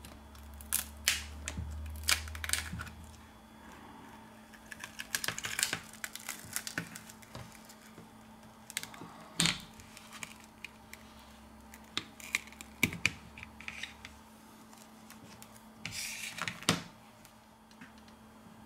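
A thin plastic opening pick working round the glued edge of an LG K50 phone screen: scattered sharp clicks and scrapes, in a few quick clusters, as the adhesive gives and the screen is pried off the frame.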